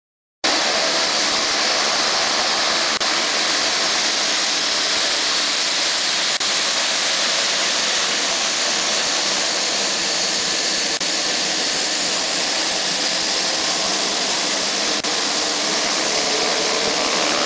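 Twin-turboprop Beechcraft King Air taxiing, its engines giving a loud, steady hiss and whine with the propellers turning. It cuts in sharply about half a second in.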